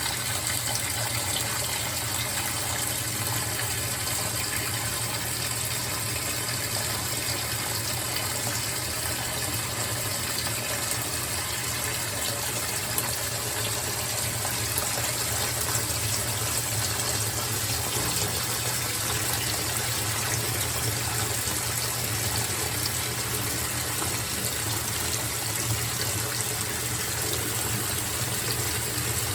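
GE top-load washing machine filling with the lid up: water gushing steadily into the tub, with a steady low hum beneath.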